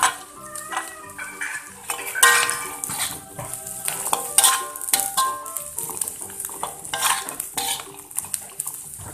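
Metal spatula scraping and clanking irregularly against a steel wok while stir-frying green chillies and tempeh, with oil sizzling underneath. The sharpest clank comes about two seconds in.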